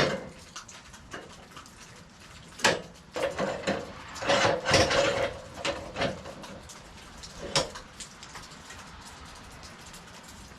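Scattered clanks and knocks of metal and wood being handled, with a denser clattering run about four to five seconds in and a single knock near eight seconds.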